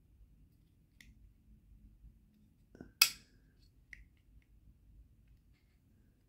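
Folding knife blade being worked by hand and clicking past its detent ball. A faint click comes about a second in, a sharp loud snap about three seconds in, and a lighter click a second later.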